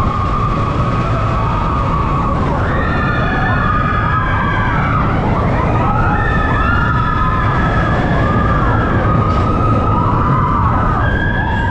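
Expedition Everest roller coaster train rumbling along its track in the dark, with riders screaming: many long, overlapping screams that rise and fall in pitch over the train's noise.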